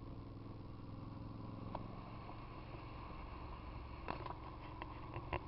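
Motorcycle engine running at a steady low pitch, with a few short sharp clicks in the last second and a half.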